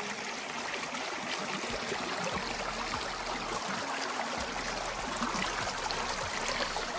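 Shallow mountain stream running fast over a stony bed: a steady rushing babble of water.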